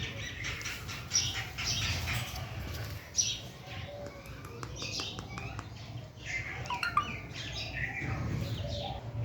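Pet green parrot making soft, scattered chirps and clicking sounds, with some rustling or wing movement.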